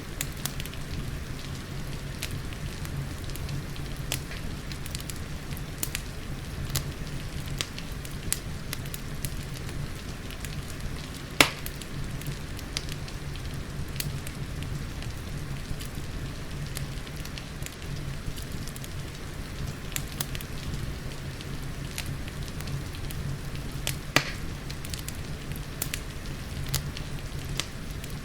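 Wood fire crackling in a fireplace over a steady rush of rain, with scattered sharp pops. Two pops are louder: one about a third of the way in and one late on.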